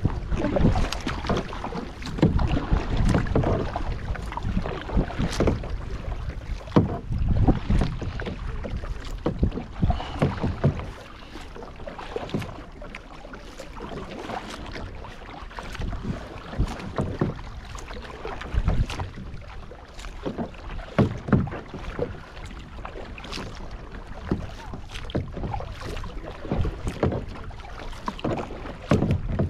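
Kayak paddle strokes dipping and splashing in lake water, with short irregular splashes and drips. Wind rumbles on the microphone, heavier in the first part and easing about a third of the way through.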